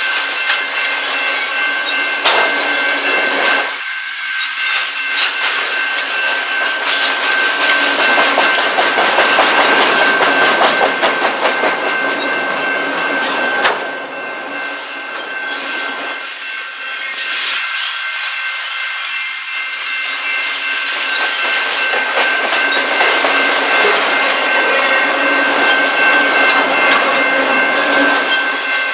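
Long, slow freight train of empty-sided autorack cars rolling past close by: steel wheels clicking over the rail joints in a steady clatter, with a steady high-pitched whine over the rumble. It eases slightly as the last car passes near the end.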